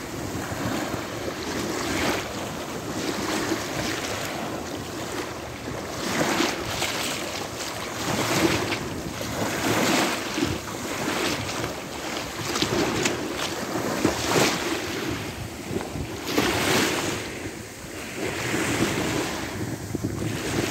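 Small waves washing up onto a sandy beach, surging and receding every few seconds, with wind buffeting the microphone.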